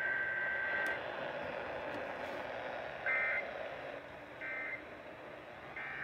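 Emergency Alert System digital data tones (SAME code) received over AM radio through a weather radio's speaker, with static hiss. A longer warbling data screech ends about a second in, then three short data bursts follow about a second and a half apart, the pattern of the end-of-message code.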